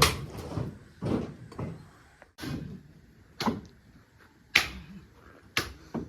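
Bricks being set down one after another: a series of hard knocks, roughly one a second, the first the loudest.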